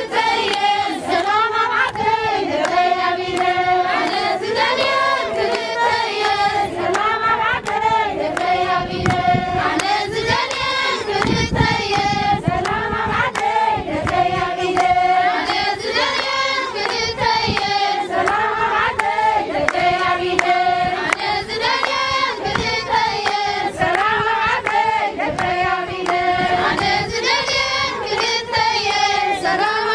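A crowd of women singing together in short, repeating phrases, with rhythmic hand clapping.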